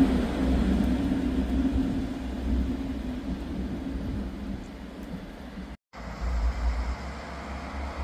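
Diesel engines of a DB class 612 tilting railcar running as it pulls away, a low engine hum and rumble fading steadily as the train draws off. The sound cuts out abruptly about six seconds in, then a fainter low rumble follows.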